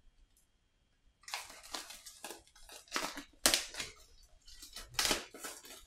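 Plastic wrapping crinkling and tearing as it is pulled off board game pieces. It starts about a second in as a run of irregular crackles, with a few sharper snaps.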